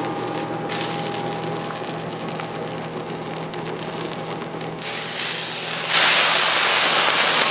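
Okonomiyaki sizzling on a hot teppan griddle. About six seconds in, the sizzle jumps much louder as the soy-sauce-glazed okonomiyaki is turned over with two metal spatulas onto the hot iron.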